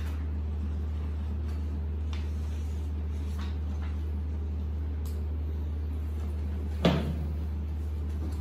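A steady low hum, with a few faint taps and one sharper, louder knock about seven seconds in.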